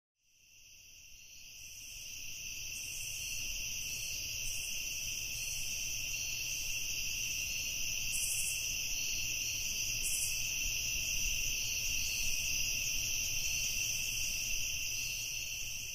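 Crickets chirring in a steady night-time trill, fading in over the first few seconds.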